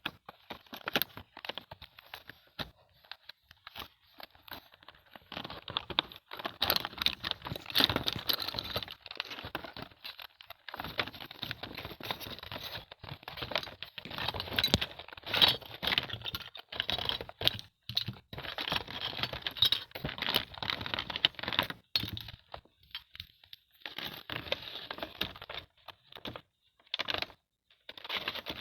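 Small plastic toy pieces being handled and unpacked, with many quick clicks and rattles and some packaging crinkling and tearing, in stop-start runs.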